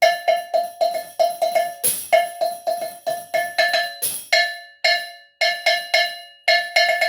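A cowbell struck repeatedly in a quick rhythm, about three strikes a second at first and then in sparser pairs, each strike ringing briefly. A small tambourine is struck with it, loudest about two seconds in and again about four seconds in.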